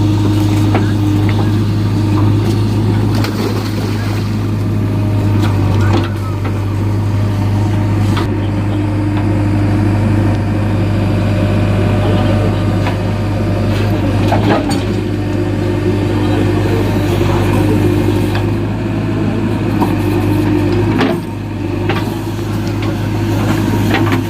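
Diesel engine of a JCB backhoe loader running steadily, with a few sharp clanks; the level drops a little about three seconds before the end.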